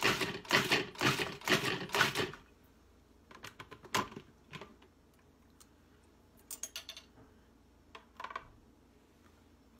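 Food processor pulsing, short motor bursts about two a second as it chops roasted tomatoes, garlic and jalapeños into salsa, stopping after about two seconds. Then come a few plastic clicks as the bowl is lifted off the base, and a spoon scraping the salsa out of the bowl.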